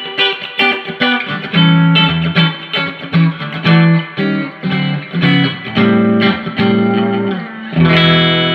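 Electric guitar played through a Fender Hot Rod Deluxe tube combo amp, fitted with a new pair of 6L6GC power tubes, during a sound test after repair. It plays a quick run of picked notes and short chords, then a longer held chord near the end.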